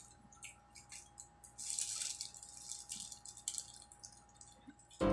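Soft, scattered rustling and small clicks from handling and eating fast food, over a faint steady hum; music comes in at the very end.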